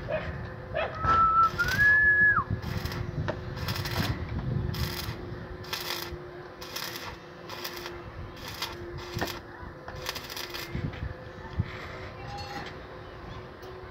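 Stick welding on a square-tube steel frame: the arc crackles and hisses in short bursts, about one or two a second, over a steady hum. A brief rising whistle sounds a little over a second in.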